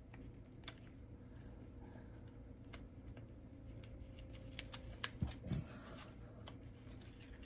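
Faint scattered clicks and rustles of fingers handling a small packaged makeup brush, working at its wrapping, with a couple of soft bumps a little past halfway. A steady faint hum runs underneath.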